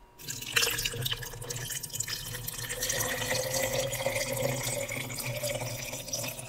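Iced tea poured from a can into a glass jar over a few pieces of ice, a steady trickling pour whose pitch rises slowly as the jar fills.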